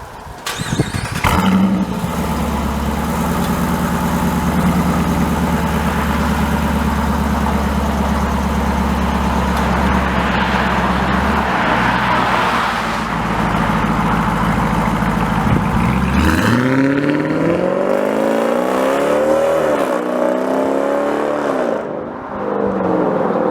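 Dodge Durango's 5.7 L Hemi V8 through a Borla cat-back exhaust, firing up about a second in and running at a steady idle. In the last several seconds it is revved up and down a few times.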